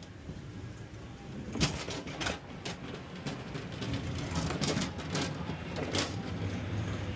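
A run of irregular knocks and clatters from kitchen clean-up work, starting about a second and a half in, over a steady low machinery hum.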